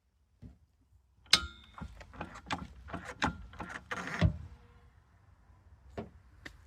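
Jack being worked, making a quick series of sharp metallic clicks and knocks, the first with a brief ring. They run from just over a second in until past four seconds, with one more near the end.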